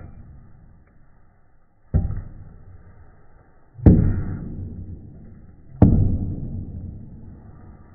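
Chef's knife slicing through a half onion and striking a wooden cutting board: three sharp knocks about two seconds apart, each dying away slowly afterwards.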